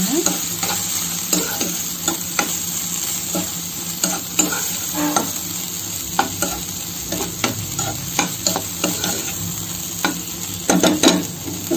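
Okra coated in ground masala paste sizzling in oil in a kadai while a spatula stirs and scrapes it, with irregular scrapes over the steady sizzle and a quick cluster of louder scrapes near the end.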